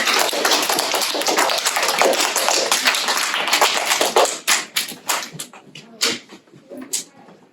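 Audience applauding: dense clapping for about four seconds, then thinning to a few scattered claps that die away.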